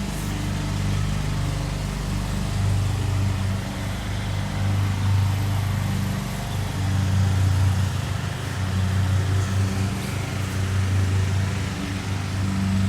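Lawn mower engine running steadily with a low, even hum, its loudness swelling slightly now and then.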